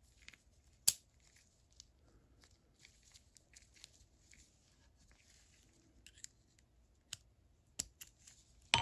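Small sharp metal clicks and light scraping of the KAL 1/2-inch drive ratchet's pawls, springs and plungers being worked into the head during reassembly. A handful of separate clicks, the loudest about a second in and just before the end.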